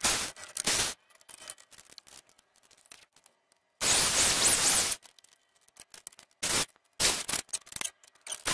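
Corded Black & Decker electric drill running screws into wood in short bursts, its motor whine rising and falling. The longest run, about a second, comes a little under four seconds in, with several shorter bursts near the end.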